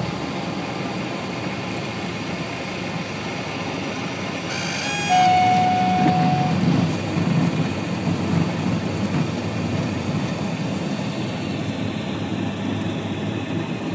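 Cessna 172's engine and propeller running at low power on approach. About five seconds in a single steady tone sounds for about a second and a half, typical of the stall warning horn in the landing flare. A louder, uneven low rumble follows for several seconds.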